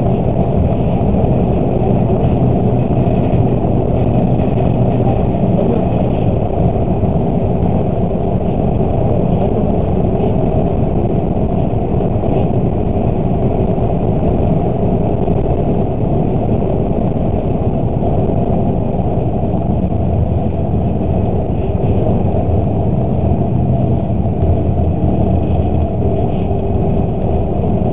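Steady engine and road noise inside a moving vehicle's cab, recorded by a dashcam, with a constant low engine hum and no change in pace.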